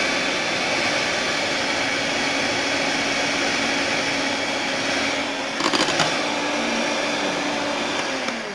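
Electric hand mixer running at full speed, its beaters whipping cream that has thickened to stiff peaks, a steady motor whine. A brief rattle about six seconds in, and the motor starts to wind down at the very end.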